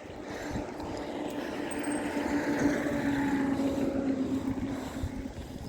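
A motor vehicle's engine passing by: a steady hum that grows louder over the first couple of seconds, then fades away near the end.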